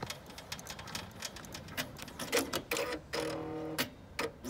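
Brother Entrepreneur Pro X PR1055X ten-needle embroidery machine clicking irregularly as it finishes the appliqué placement stitch and runs up to its programmed stop, with a short pitched hum a little past the middle.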